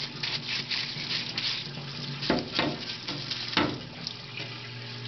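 Brush scrubbing a solvent-wet AR-15 upper receiver in a mineral-spirits parts washer, in quick repeated strokes. A few sharp knocks of metal parts come about two and a half and three and a half seconds in. A steady low hum runs underneath.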